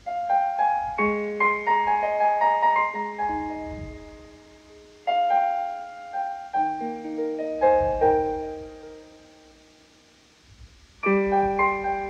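Piano music: three short phrases of struck notes and chords, each left to ring and fade, the third beginning about a second before the end.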